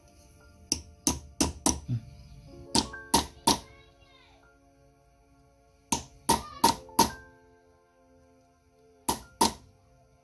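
Small hammer striking a metal ring on a steel block, in quick runs of sharp ringing taps: about five, then three, then four, then two. Background music plays steadily under the strikes.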